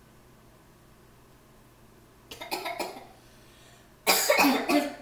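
A person coughing: a few coughs about two and a half seconds in, then a louder run of several coughs near the end.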